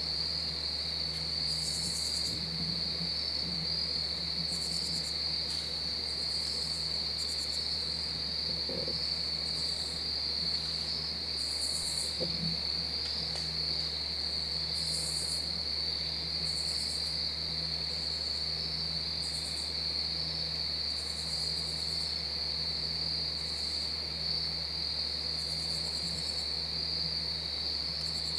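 Insect chorus: a steady, high cricket trill, with short raspy calls from other insects, higher still, breaking in every second or two.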